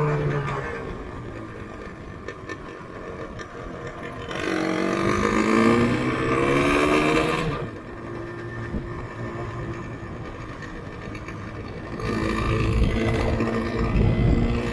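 Yamaha RZV500R's two-stroke V4 engine under way. It is quieter off the throttle at first, then accelerates with a rising pitch a few seconds in, eases back to a steadier lower note, and gets louder again near the end.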